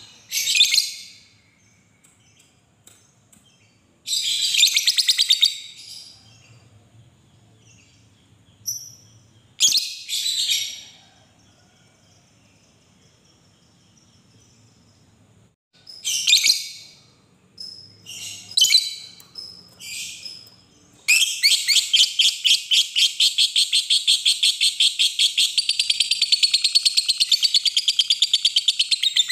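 Fischer's lovebird giving short bursts of shrill chirping, then, about two-thirds of the way in, breaking into a long unbroken run of rapid high chattering (the 'ngekek' chatter of a singing lovebird).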